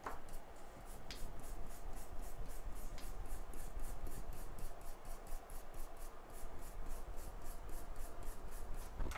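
Rapid, even back-and-forth rubbing strokes, about four a second, like hand scrubbing or scraping on a hard surface. There is a sharp click at the start and a couple of fainter ticks in the first few seconds.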